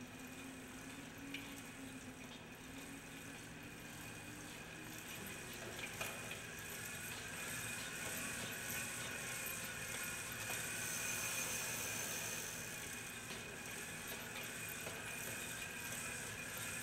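Bicycle on a stand being pedaled: the chain and spinning rear wheel whir faintly and steadily, growing louder over the second half.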